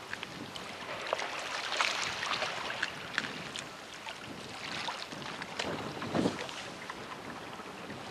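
Small waves lapping and splashing against the rock armour of a harbour breakwater, with irregular little splashes and crackles over a washing background, and wind buffeting the microphone.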